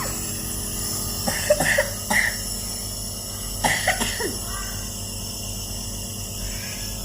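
A child coughing with a cough and cold, in two short bouts about a second in and again near four seconds, over the steady hum of a nebulizer's compressor.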